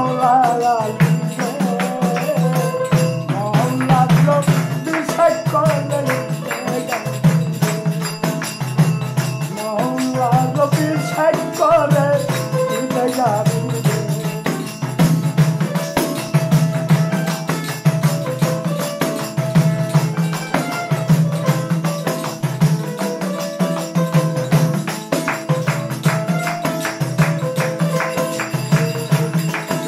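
Bengali devotional folk song (shohoj gaan) in an instrumental stretch: a steady repeating drum beat and hand percussion under a held drone. A melody rises and falls in short phrases during the first half, then the accompaniment carries on alone.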